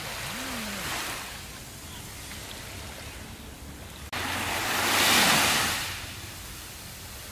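Small sea waves lapping on a sandy beach: a soft wash about a second in, then the level jumps suddenly and a bigger wave surges up the sand, loudest about five seconds in, and drains away.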